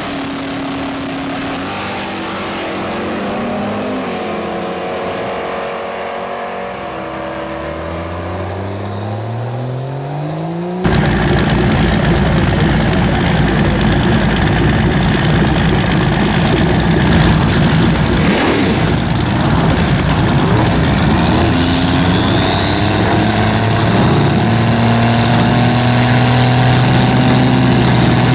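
Drag-racing car engine running, then revving with a rising pitch. About eleven seconds in it jumps suddenly to a much louder, full-throttle run whose pitch keeps climbing slowly.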